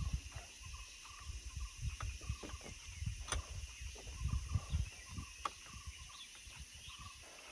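Quiet outdoor ambience: a steady high hiss of insects with faint, scattered bird chirps, and wind gusting on the microphone. Spoons clink sharply against the glasses or plates twice, about three seconds in and again about five and a half seconds in.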